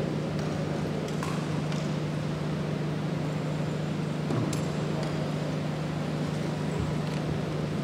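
Steady low background hum over a noisy room tone, with a few faint short clicks.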